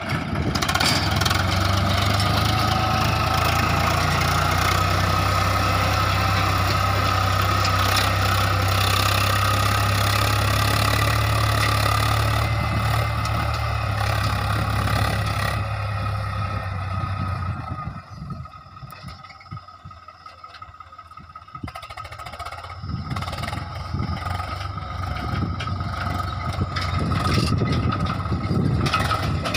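Swaraj 855 tractor's three-cylinder diesel engine running steadily under load while pulling a tine cultivator through dry soil. It is loud for the first half, falls away for a few seconds about two-thirds of the way through, then grows louder again near the end.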